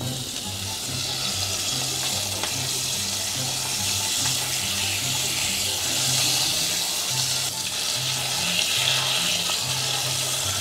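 Beef steak sizzling in butter in a pan, a steady hiss.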